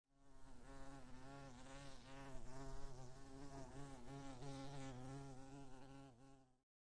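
A bee buzzing: a steady hum that wavers slightly in pitch, then stops abruptly near the end.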